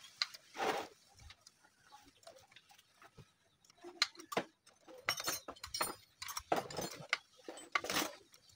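Scattered light metallic clicks and clinks of parts being handled and fitted inside the open crankcase of a small single-cylinder engine during assembly. Two louder short sounds stand out, one about a second in and one near the end.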